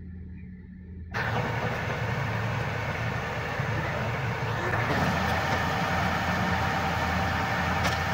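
Engine running steadily. It sounds muffled for about a second, then turns suddenly louder with a rough rushing noise over the steady hum.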